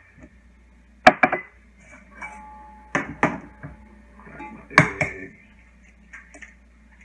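Glass dishes and kitchen utensils clinking and knocking as they are set down and moved on a steel counter: about five sharp knocks, some with a brief ring, the loudest about a second in and about five seconds in.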